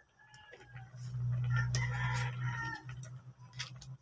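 A rooster crowing, with one long crow from about a second in, over a low hum that is loudest at the same time.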